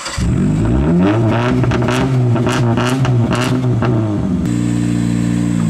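Lifted Chrysler PT Cruiser's four-cylinder engine revving up and back down, with a run of sharp clicks over it in the middle. About four and a half seconds in, it settles abruptly to a steady, lower running note.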